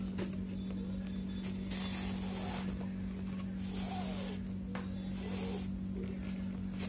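Chain (cord) crochet yarn drawn through stitches while a pocket is sewn onto a bag, giving three short rustling pulls about a second and a half apart. A steady low hum runs underneath.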